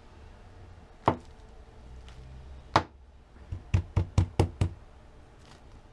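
A mug being knocked upside down against a surface to work a microwaved mug cake loose: two single knocks, then a quick run of about six.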